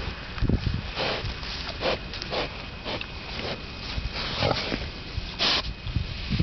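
Sows rooting in the soil, sniffing and snuffling through their snouts in a run of short bursts, with one louder snort near the end.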